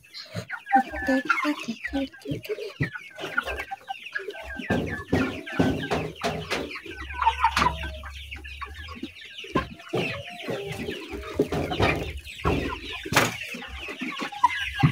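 Eight-week-old chickens clucking in many short, irregular calls.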